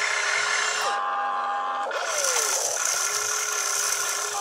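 RC excavator's electric motors whining as the machine slews its boom round and raises a loaded bucket. The whine changes pitch several times, jumping in steps and gliding up and down as different motions start and stop.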